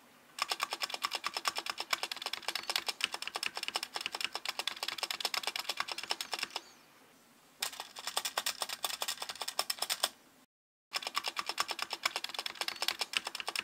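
Backspace key of a Vortex Pok3r mechanical keyboard pressed rapidly over and over, a quick run of clacks from the switch and its Cherry stabilizer. The stabilizer has been lubed with Krytox, which makes it only a little quieter. The clacking comes in three bursts, with a short pause about seven seconds in and a brief cut-off a little after ten seconds.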